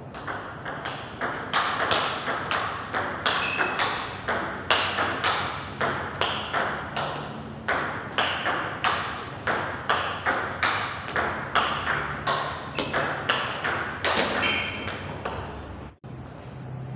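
Table tennis rally: the ball clicking back and forth off the rubber bats and the table in a quick, even rhythm of about two to three hits a second, stopping shortly before the end.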